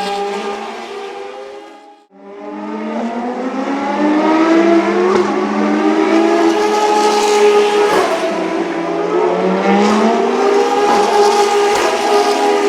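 Ferrari FXX K's V12 racing engine running at high revs on track, its pitch climbing as it accelerates and dropping sharply at each gear change. The sound cuts out briefly about two seconds in, then builds again.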